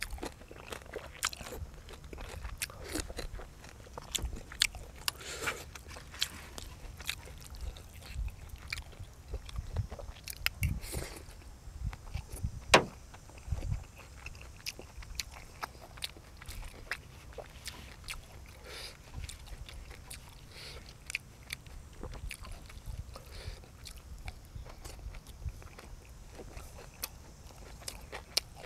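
A person chewing and biting crunchy food, with irregular crunches and clicks throughout and one louder crack about 13 seconds in.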